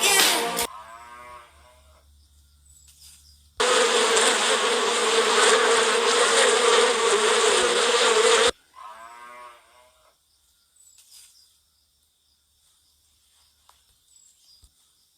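Sheep bleating, once near the start and again near the middle, with a loud steady buzz between them for about five seconds that cuts in and out abruptly.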